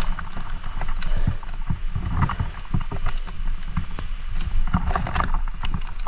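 Mountain bike being ridden over a soaked, flooded woodland trail. A steady low rumble and wind buffeting on the microphone are broken by frequent short knocks and rattles.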